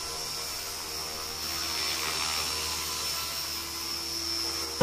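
JR Forza 450 electric RC helicopter hovering: a steady motor whine and rotor hum that swells slightly in the middle.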